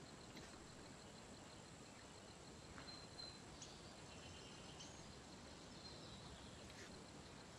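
Near silence: faint outdoor hiss with a few faint, short, high bird chirps.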